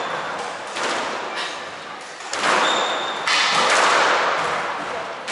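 Squash rally: the ball knocked back and forth between rackets and the walls about once a second, each hit ringing in the hard-walled court, with a short high squeak of a sneaker on the wooden floor midway through.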